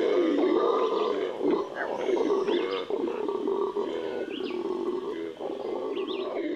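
Venezuelan red howler monkey (Alouatta seniculus) howling: a long, rough, unbroken howl, with a few short bird chirps over it.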